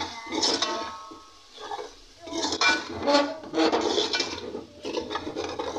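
Metal spoon scraping and clinking against a metal cooking pot as thick tomato-and-spice masala is stirred, in irregular strokes with a quieter lull about one to two seconds in.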